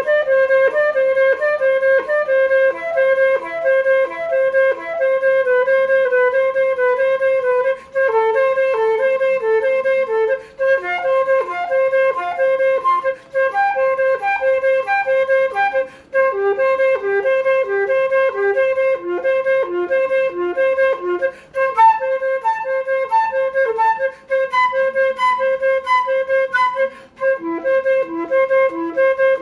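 Concert flute played solo: a fast practice exercise of triplet figures, each bar played twice. The line keeps returning to one repeated note, with a few short gaps between phrases.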